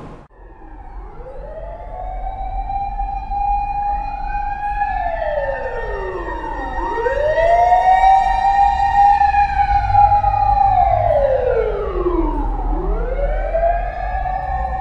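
Mechanical wailing sirens, several overlapping: each winds up over about two seconds to a held high tone, then slides back down before winding up again, loudest in the middle.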